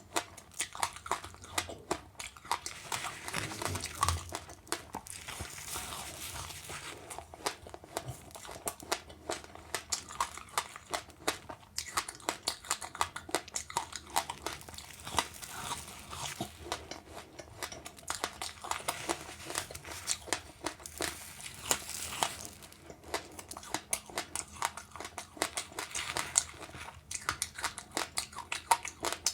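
Close-up chewing and crunching of passionfruit with sesame seeds: many small, sharp, irregular crunches and clicks as the seeds are bitten.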